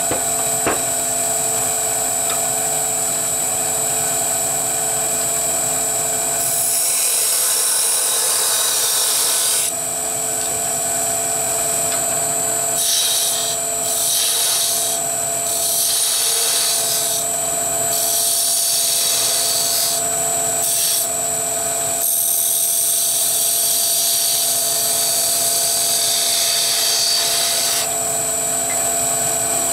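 Wood lathe running with a steady whine while a flat turning tool cuts the spinning wooden top body, in several stretches of scraping hiss, the first starting about a quarter of the way in and the last stopping shortly before the end.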